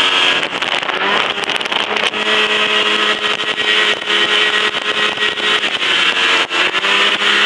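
Ski-Doo Safari snowmobile's two-stroke engine running steadily while riding along the trail, its pitch rising and falling slightly with the throttle.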